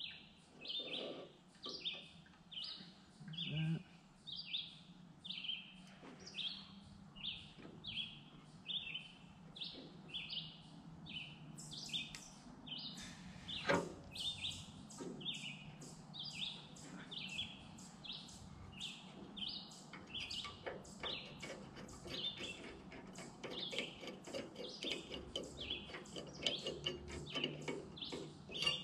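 A bird chirping over and over in a regular rhythm, about two chirps a second. Now and then there is a sharp click or knock of metal parts being handled as a small-engine carburetor is refitted, the loudest about halfway through.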